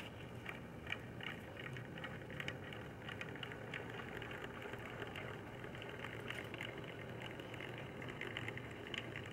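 Faint, steady low hum with light scattered ticks and rattles from the Mercedes SL500 as its body settles lower over the front wheel on the lowering-link-adjusted suspension.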